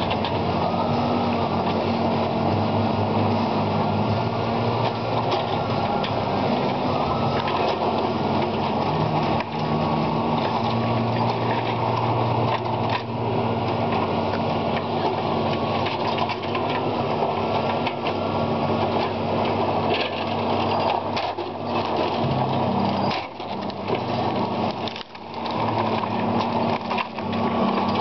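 Diesel engine and hydraulics of a John Deere 2054 tracked delimber running steadily, its low drone swelling and easing with the load, with several sharp knocks from the delimbing boom working logs.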